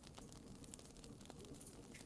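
Wood bonfire crackling quietly, a few faint small pops over a soft hiss.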